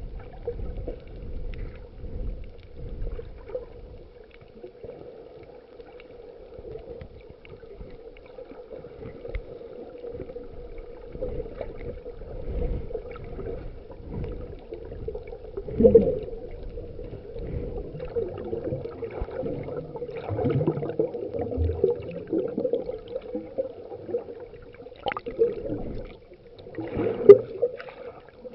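Muffled water sounds over a steady hum, with irregular swells and a few sharp knocks, the loudest about 16 and 27 seconds in.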